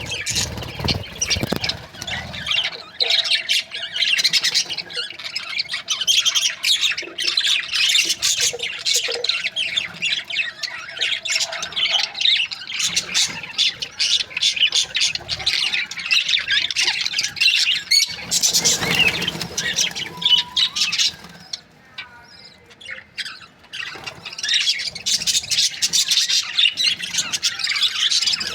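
A flock of budgerigars chattering, many quick high chirps and squawks overlapping without a break, easing into a brief lull about three-quarters of the way through before picking up again.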